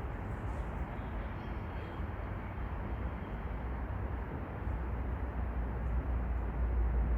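Steady outdoor background noise with a low rumble that gets a little louder past the middle; no distinct events stand out.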